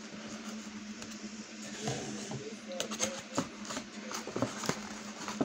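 Rustling and light clicks of a cardboard takeout box being handled as food is picked out of it, starting about two seconds in, over a steady low hum.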